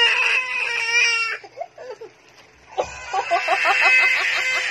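Infant crying in two long, wavering wails with a short quieter break between them; the baby is refusing the bottle.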